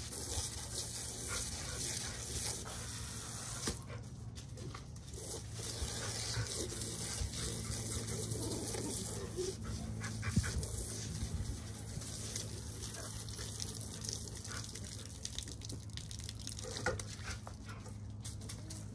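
Dogs panting and moving about over a steady low hum, with a few short knocks.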